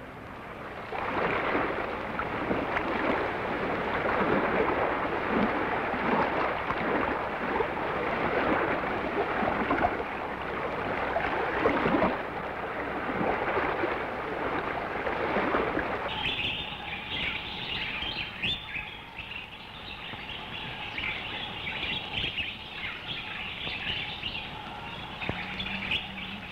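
Soundtrack effect of the open sea: a steady rush of waves and water. About two-thirds of the way through, it changes to a forest or bush ambience full of chirping bird calls.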